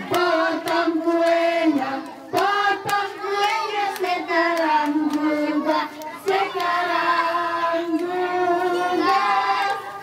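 A group of children and adults singing a birthday song together, with hand claps keeping time.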